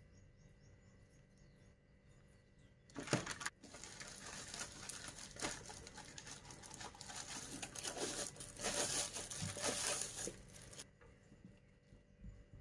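Thin low-density polyethylene bag crinkling and rustling as it is handled and pulled off a projector. It starts sharply about three seconds in and stops abruptly near the end.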